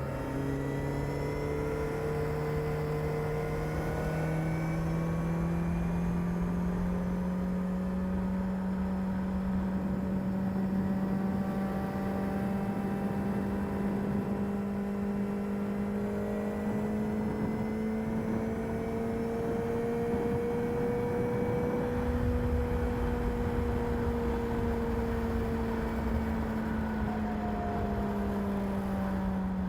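Kawasaki ZR7S air-cooled inline-four running on its stock exhaust at near-steady revs. Its pitch climbs slowly for about twenty seconds, then eases back down near the end, over a low rumble.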